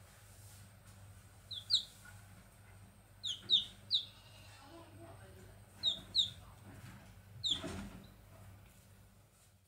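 Grey junglefowl chicks peeping: about eight short, high, falling peeps, mostly in twos and threes, over a faint steady low hum. A brief burst of noise comes about seven and a half seconds in.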